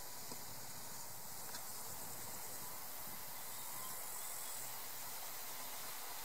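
Faint, steady high hiss of meadow ambience with insects chirring in the grass.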